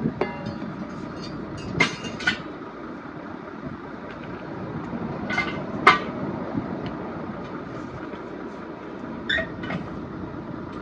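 Sharp metallic clinks and knocks, about seven at uneven intervals, some ringing briefly, from metal tools and parts being handled during truck tyre repair work, over a steady low rumble.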